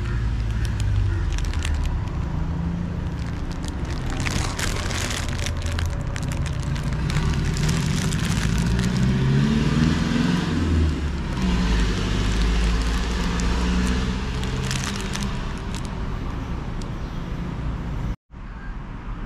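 Plastic bread bags crinkling as they are handled, over a steady low rumble and distant voices. The sound drops out for a moment near the end.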